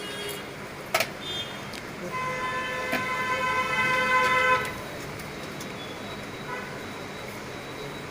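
A horn sounds one steady note for about two and a half seconds, starting about two seconds in. A single sharp click comes about a second in.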